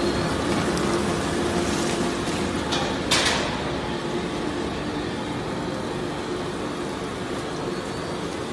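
Plastic and waste recycling shredder line with its belt conveyor running: a steady machine din with a constant hum, and one sharp crack about three seconds in.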